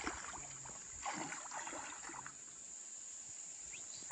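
Light splashing of a child's feet wading through shallow river water, mostly in the first second and a half, over a steady high insect drone. A single sharp knock right at the end.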